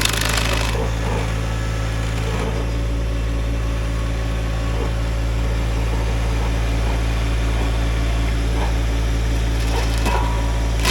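Tractor engine running steadily, driving the T.H.E. Stump Buster's 24-inch carbide-toothed grinder wheel. The harsh grinding of wood fades out under a second in, leaving the engine hum and spinning wheel with light, scattered chipping.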